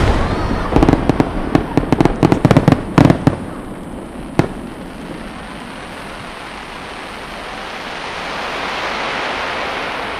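Sanshakudama (three-foot) firework shell just after its burst: a rolling string of loud cracks and booms for about three seconds, one more crack around four seconds in, then a rushing noise that slowly swells toward the end and eases off.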